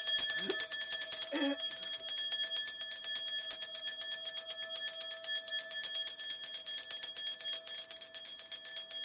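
A cluster of small brass shaman's ritual bells shaken rapidly and without pause, a continuous jingling over steady ringing tones.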